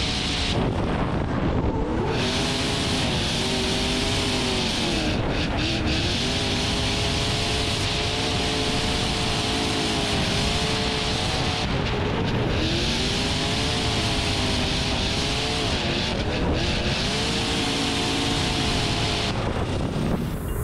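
Toyota GT86 drift car heard from onboard: its engine revs climb and fall repeatedly through a drift run, joined by long stretches of tyre screech that come and go.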